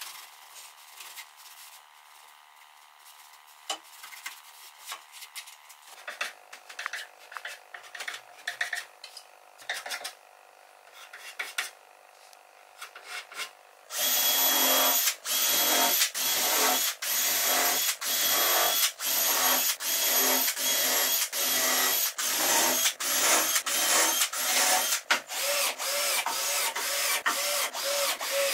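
Faint rubbing of sandpaper worked by hand over a pine table top. About halfway in, a cordless drill/driver starts driving screws into the wooden frame: a loud run of short bursts with brief pauses between them, coming quicker near the end.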